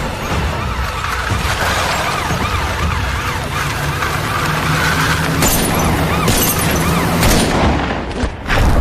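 Police sirens yelping in a fast rise-and-fall, about two cycles a second, over a steady rumble of vehicle noise.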